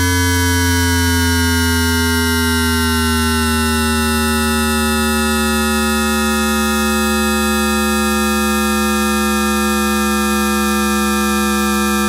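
Toyodenki RG-685-A-M VVVF traction inverter on an SFM02 subway train, heard through an induction coil, in synchronous 9-pulse mode. A stack of buzzing electronic tones slowly falls in pitch together as the train slows.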